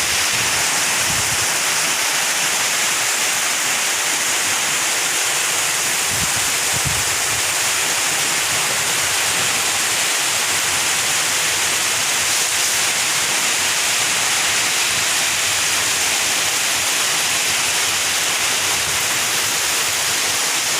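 Heavy monsoon rain pouring down, a dense, steady hiss.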